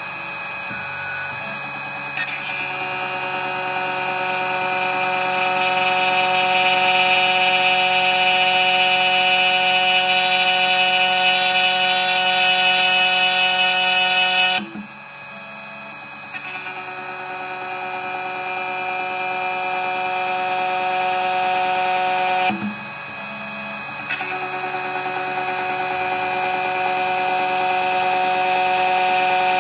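2M2 Tank CNC key cutting machine milling the dimples into a key blank: the spindle motor runs with a steady, high, many-toned whine. The whine drops away briefly twice and restarts each time with a sharp attack as the cutter moves on to the next cuts.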